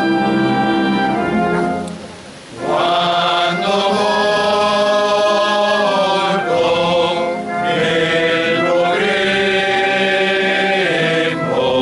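Men's choir singing a sacred chant in harmony, in long held chords. There is a short break about two seconds in and brief pauses between phrases later on, with one more break near the end.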